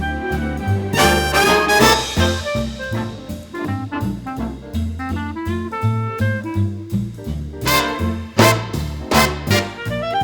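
Swing-style jazz instrumental with brass and a steady walking bass, with a bright brass flourish about a second in and more brass accents near the end.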